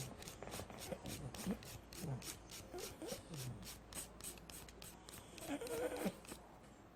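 A dog's nails being filed by hand: quick, even rasping strokes, about five a second, which stop shortly before the end.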